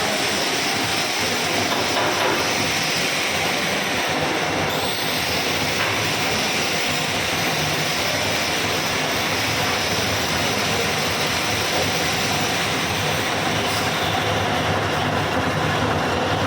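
Lathe running steadily during a turning operation, an even mechanical din with a low hum underneath.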